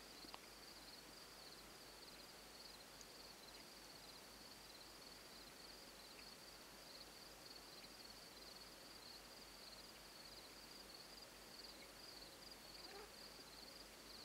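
Near silence with a steady, high, pulsing insect trill, like crickets chirping, over a faint outdoor hiss.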